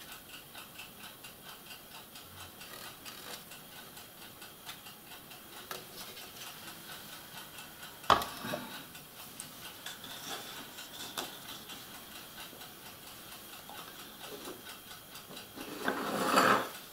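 Steady quiet ticking in the room, about four ticks a second. About eight seconds in there is one sharp click as a plastic model hull part is set down on the wooden table. Near the end a paintbrush scrapes and stirs in a small plastic cup.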